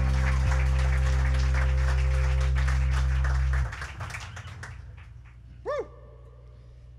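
Live music ending on a held chord over a deep, steady low drone, which cuts off abruptly a little past halfway. The room then goes quiet apart from one short rising-and-falling pitched sound.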